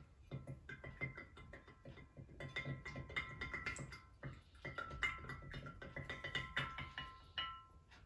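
Background music: a tune of repeated notes over a beat of short, sharp strokes.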